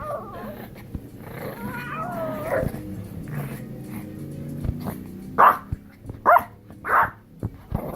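A dog barking three times, about a second apart, in the second half, with music playing underneath.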